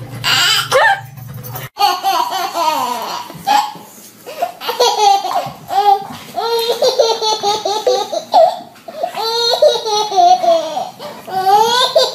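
A baby laughing in repeated peals, one burst of laughter after another.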